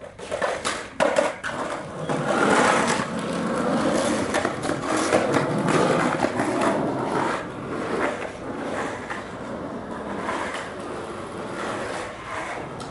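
Skateboard wheels rolling over rough asphalt, after a few sharp clacks of the board in the first second or so. The rolling is loudest for the first several seconds and then grows quieter.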